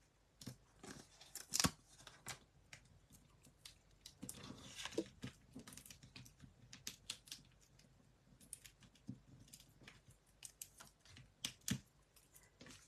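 Small clicks, taps and rustles of cardstock being handled as foam adhesive squares are peeled off their backing sheet and pressed onto a paper panel. There is a sharper tap about a second and a half in, a longer rustle around four to five seconds, and a couple more taps near the end.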